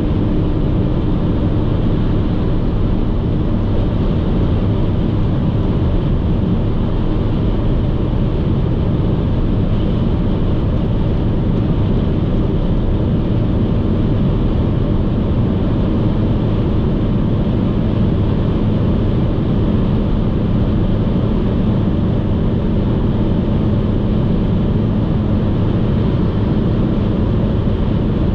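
Steady driving noise of a car cruising at motorway speed: tyre and road noise with a low engine hum, even throughout.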